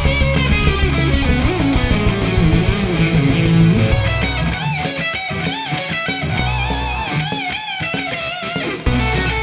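Rock music led by an electric guitar over a band backing with drums and bass. About halfway through, the bass and drums thin out and the guitar holds long notes with wide vibrato, and the full band comes back in near the end.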